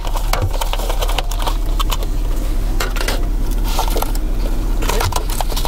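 Takeout food containers being opened by hand: packaging rustling and lids clicking in a quick irregular string of small clicks and crinkles, over a steady low hum.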